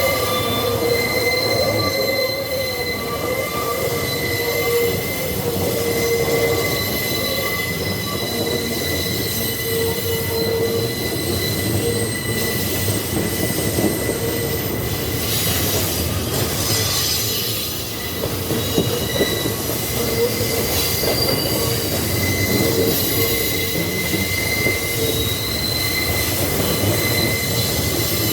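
Freight train wagons rolling past on steel rails: continuous rumble and rattle of wheels, with steady high-pitched squealing tones from the wheels that fade and return.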